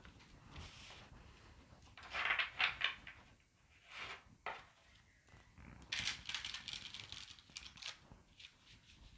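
A deck of plastic-laminated tarot cards being shuffled by hand, in bursts of rapid card-on-card flicking and riffling about two seconds in, around four seconds and again from about six to eight seconds.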